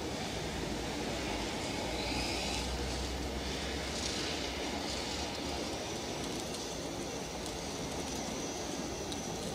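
Remote-controlled electric caravan mover running, its motor-driven rollers turning the caravan's wheels: a steady mechanical whir with a faint high whine over it.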